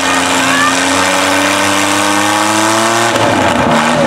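Demolition derby pickup truck engines running, with one revving and its pitch climbing steadily for about three seconds before the note breaks off near the end.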